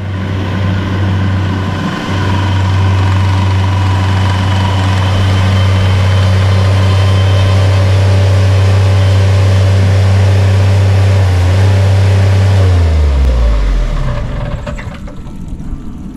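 Bobcat MT85 mini track loader's diesel engine running steadily, then shut off about 13 seconds in, its pitch sliding down as it winds to a stop.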